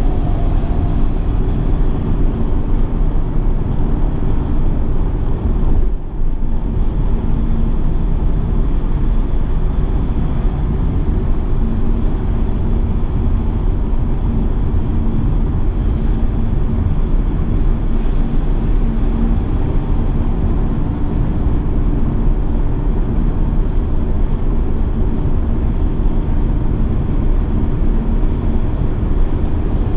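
Mercedes-Benz E 220d estate with its four-cylinder diesel driving at speed: a steady, loud rumble of wind, tyre and engine noise, with a brief dip about six seconds in.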